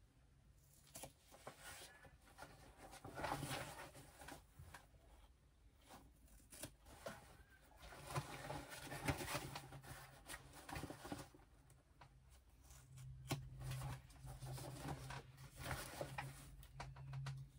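Scissors snipping through sewn seam allowances to trim them back to a quarter inch, with fabric rustling and small irregular clicks as the bag is handled; faint, with a low hum coming and going.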